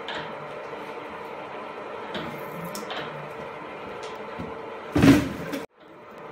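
Steady hum of a FUS22 milling machine running, with a few light metallic clicks. About five seconds in there is a loud, short burst of noise lasting about half a second, and then the sound cuts off suddenly.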